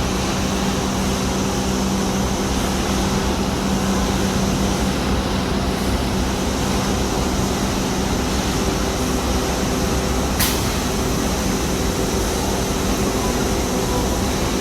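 Steady mechanical din of an automated corrugated-cardboard production line running, with a constant hum and one sharp click about ten seconds in.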